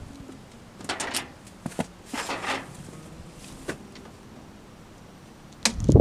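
Metal clicks, rattles and scrapes of hands and tools working inside an electrical breaker panel while an old breaker is removed. A louder, heavier thump comes near the end.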